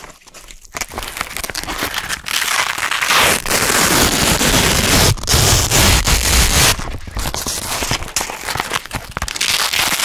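Velcro hook-and-loop strips being pulled apart by hand: a loud, dense crackling rip that starts about a second in and runs on in long pulls, easing briefly about five and seven seconds in.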